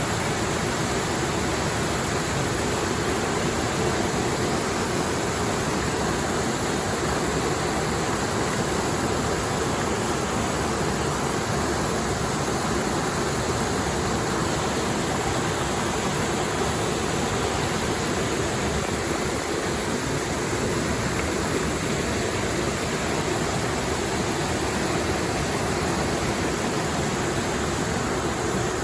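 Small waterfall on a clear mountain stream: a steady rush of falling water.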